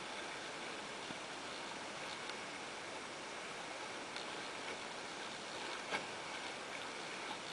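Water rushing and splashing along the hull of a small sailing dinghy under way, a steady hiss with a few light ticks and one sharper click about six seconds in.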